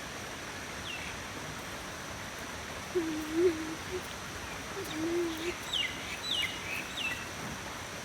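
Steady rush of flowing mountain stream water, with a bird calling in short, sharp falling notes, once about a second in and three in quick succession near the end. In the middle come a few short, low, wavering whines, the loudest sounds here.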